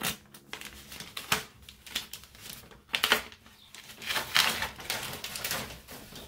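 Sublimation transfer paper being peeled back off a freshly heat-pressed infant bodysuit and pushed aside, rustling and crinkling in irregular bursts.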